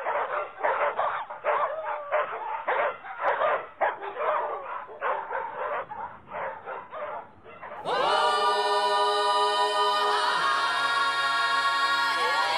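Rapid barking, about two barks a second, with a thin, lo-fi sound. About eight seconds in it gives way to music: sung voices holding long chords.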